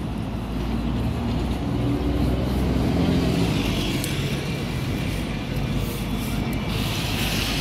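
A red double-decker bus drives up and pulls in to the stop close by, its engine running and growing louder as it approaches. A hiss starts near the end as it comes to a halt.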